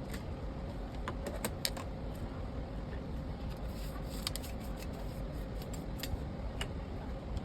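Scattered light clicks and taps, a few close together about a second in and again around four seconds, over a steady low background noise.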